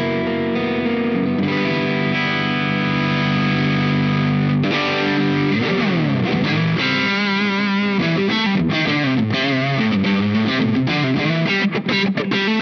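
Electric guitar, a Fender Aerodyne Special Telecaster, played through the Caline Key West with its Diamond-style compressor and Zendrive-style overdrive both on and the gain all the way up. It plays held overdriven chords, then a slide into single-note lead lines with wide vibrato and long sustain, and quick choppy notes near the end.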